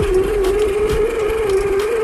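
Electric motor and gearbox of an RC rock crawler whining as it drives through a muddy puddle, holding a steady pitch that wavers slightly up and down with the throttle.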